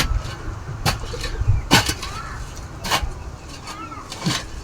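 Broom strokes sweeping a coop floor, a short sharp swish about once a second. Two faint whistle-like calls in the background.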